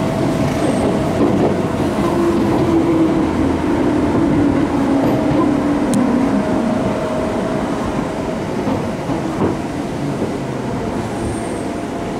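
Onboard running sound of a Seibu New 101 series resistance-controlled electric train: wheel-on-rail rumble with the traction motor and gear hum, which sinks slightly in pitch and fades as the train slows alongside a station platform.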